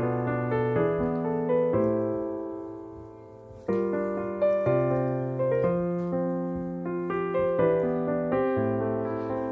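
Background piano music: a slow keyboard melody over held chords, fading away about three seconds in and starting a new phrase under a second later.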